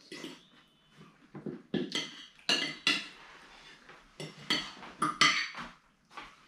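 Knife and fork clinking and scraping on ceramic dinner plates during a meal: a string of separate sharp clinks.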